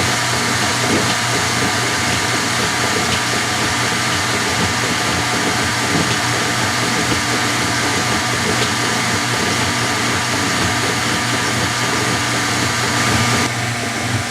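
Washing machine running with its cabinet removed: a steady, noisy rush over a constant low motor hum. The sound drops a little in level and loses some of its hiss shortly before the end.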